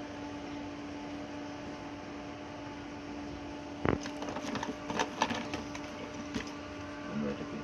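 Wire and small tools being handled on a workbench over a steady hum: one sharp click about four seconds in, then about two seconds of scattered clicks and rattles.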